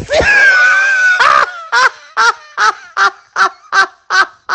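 A long shrill call, then a regular run of short honking calls, about two a second.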